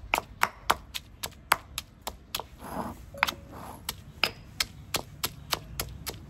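Stone pestle pounding ginger, garlic and chili in a granite mortar: sharp, even knocks at about four a second, with a short break near the middle.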